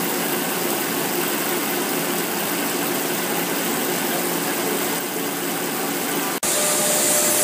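Falk enclosed gearbox running under test on a belt-driven test stand, a steady mechanical hum and whir with faint even tones, as it is run in after repair to check for gear and bearing noise. The sound cuts out for an instant about six seconds in and comes back hissier, with a steady higher tone.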